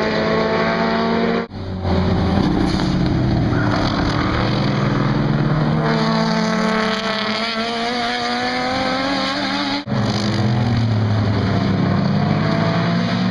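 Race car engines running hard at full throttle, their pitch climbing and falling through gear changes as the cars go by. The sound cuts off abruptly twice, about a second and a half in and near the ten-second mark, then picks up again.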